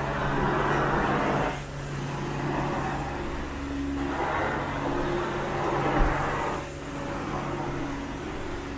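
Carpet extraction wand drawn across carpet in strokes: a rushing suction hiss that swells for two to three seconds and drops back, about every four seconds, over the steady hum of the extraction machine's motor.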